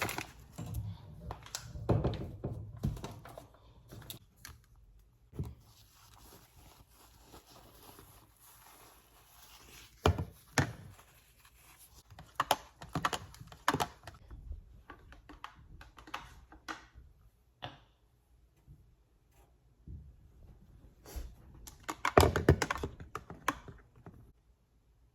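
Irregular clicks, taps and knocks of objects being handled, with a dense, louder cluster near the end.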